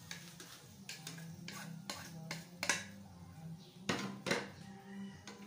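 A wooden spatula scraping and knocking as pieces of pork intestine are pushed off a plastic plate into a stainless steel pot and stirred in with the pork belly: a string of short scrapes and clacks, loudest near the end.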